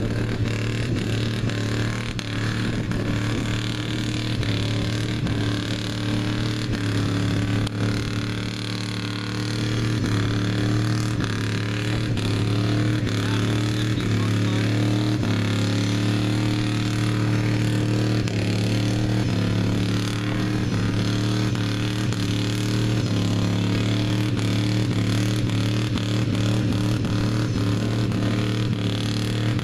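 Street stock mud bog pickup truck's engine running hard at fairly steady revs as it works through the mud pit. It grows louder about ten seconds in as the truck comes closer.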